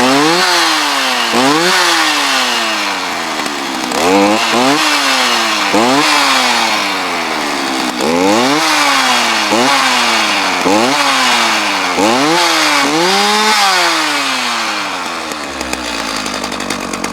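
Stihl MS 310 two-stroke chainsaw engine being revved over and over: the throttle is squeezed and released about every second and a half, so the pitch climbs and drops back each time. It settles to a lower, steadier run near the end.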